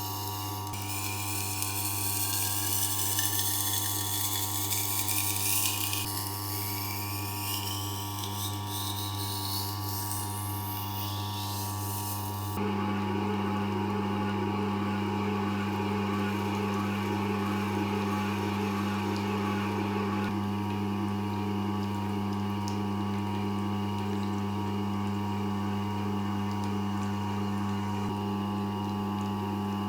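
Motorized knife-sharpening grinder running with a steady hum while a kitchen knife blade is ground against it in several sweeping passes, each a rising hiss. About 12 seconds in the sound switches abruptly to a louder, steadier whir as the deburring and polishing stage begins.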